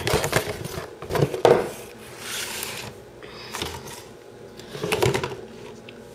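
Handling noise from a vinyl Funko Pop figure being lifted out of its cardboard box and clear plastic tray: scattered knocks and a brief rustle of packaging.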